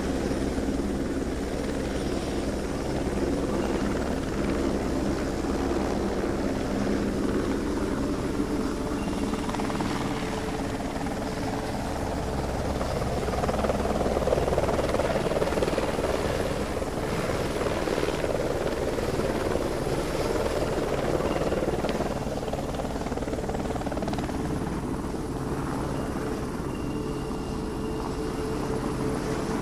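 DJI quadcopter drone's propellers whirring in flight: a steady rotor hum whose pitch shifts now and then as it manoeuvres.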